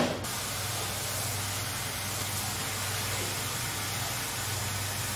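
A short knock at the very start, then water spraying from a hose in a steady hiss.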